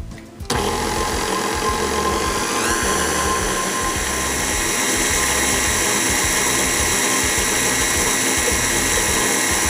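KitchenAid stand mixer motor running on medium speed, its flat paddle beating pumpkin pie filling in the steel bowl. It starts abruptly about half a second in as a steady whine, rises to a higher speed a little under three seconds in, then holds steady.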